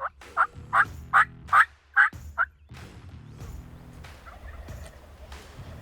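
Wild turkey calling: a quick series of about seven loud, evenly spaced notes lasting about two and a half seconds, then quieter.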